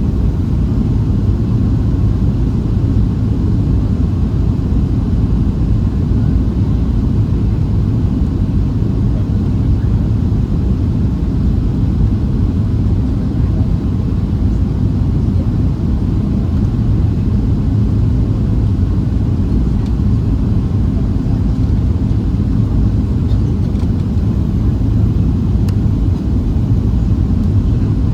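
Boeing 737-700's CFM56-7B engines and airframe giving a steady, loud low rumble that holds unchanged throughout.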